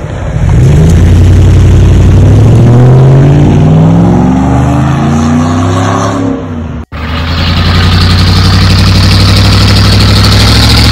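Car engine revving, its pitch climbing over several seconds. About seven seconds in the sound cuts off sharply and comes back as the engine running steadily at raised revs.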